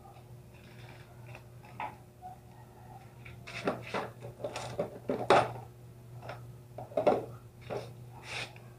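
Metal tools and parts clinking and clattering as they are handled and set down, a scattered run of sharp knocks that grows busier about halfway through.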